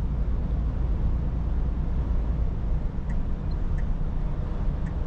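Steady low engine and road rumble of a Scania S450 truck cruising, heard from inside the cab, with a few faint ticks in the second half.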